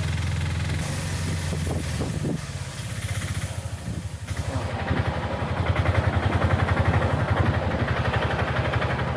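Vehicle engine running: a steady low hum that, a little over two seconds in, turns into a rapid, even throbbing pulse.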